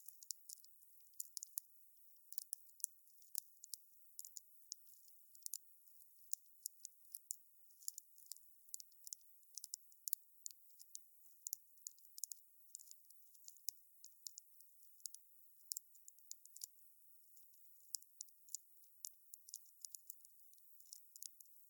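Wood fire crackling quietly: many small, sharp pops and snaps at an irregular pace, several a second, over a faint hiss.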